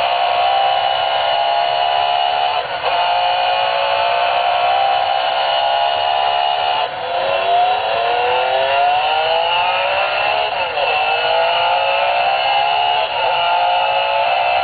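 F1 racing alarm clock's electronic V8 engine sound effect playing through its own speaker. A steady engine note with no deep bass breaks off briefly every few seconds. From about seven to ten seconds in it revs upward repeatedly, dropping back between rises like gear changes.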